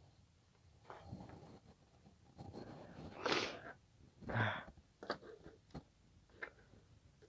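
Two breathy puffs of noise about a second apart, the second with a low thump under it, followed by a few light clicks from small things being handled on a desk.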